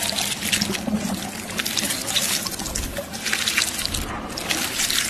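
A trickling, watery sound full of small crackles.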